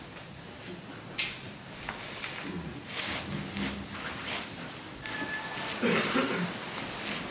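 Handling noises of a plastic bag of soil and small objects on a table: a sharp click about a second in, then scattered rustling and light knocks as things are picked up and set down.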